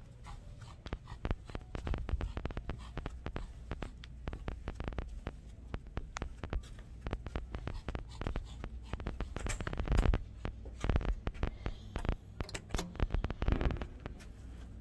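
Irregular rustling and scratching of clothing and phone handling close to the microphone as a person walks on carpet, with a few heavier thumps about ten seconds in and again near the end.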